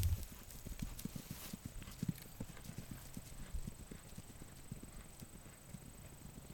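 A horse's hooves thudding on grass at a canter, the beats growing fainter as it moves away.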